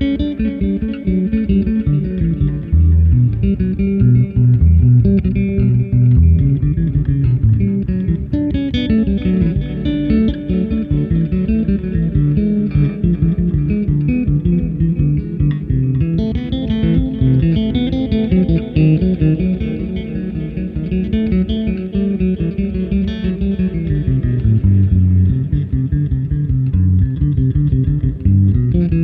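Electric bass guitar played through an Echolocator delay unit, notes overlapping with their echoes into an ambient texture.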